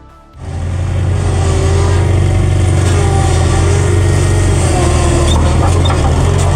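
A vehicle engine running steadily at an even pitch, cutting in suddenly about half a second in.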